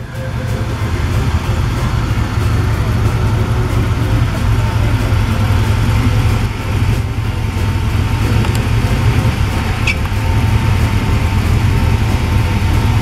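Engine of a hot-rodded vintage pickup truck running as it drives slowly past, a steady low exhaust note.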